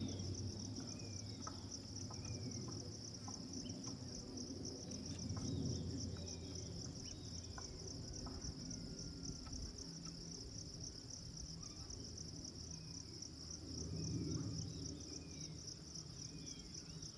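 Steady high-pitched insect trill, finely pulsing without a break, with short falling chirps repeating through it and a low rumble that swells a few times.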